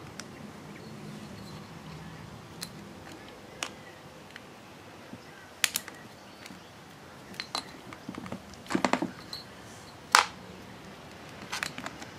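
Scattered clicks, ticks and light scrapes of a string trimmer head and its nylon line being handled as the line is threaded through the head, with a quick run of clicks about nine seconds in and a sharp click a second later.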